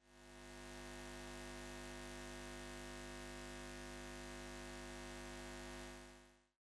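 Faint, steady electrical hum with many overtones. It fades in over the first second and fades out near the end.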